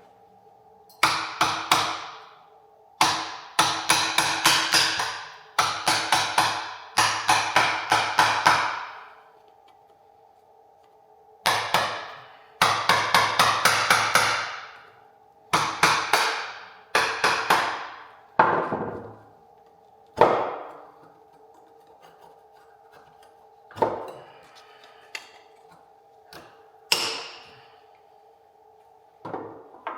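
Hammer blows on a plastic chisel, knocking cylindrical 21700 cells out of a Tesla Model 3 battery module. Each strike is sharp and rings briefly. The blows come in quick runs of many strikes, then thin out to a few single blows near the end.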